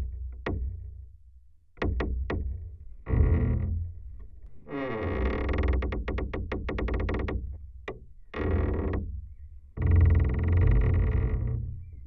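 Door hinge creaking slowly: a few separate ticks, then clicks running together into several long, grating creaks with short pauses between them as the door is moved.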